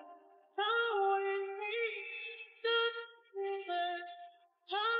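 Background music: a high, female-sounding voice sings a melody in short phrases that come in about half a second in, with brief pauses between them.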